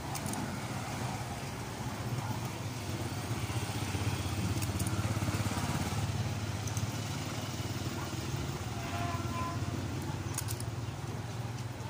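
An engine running steadily at idle, a low hum with a fast, even flutter.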